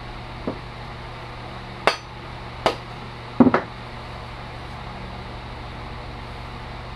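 A few sharp knocks about a second apart, the last a quick double, from a small steel shingling hatchet head and its wooden handle being knocked together while the head is test-fitted onto the handle. A steady low hum runs underneath.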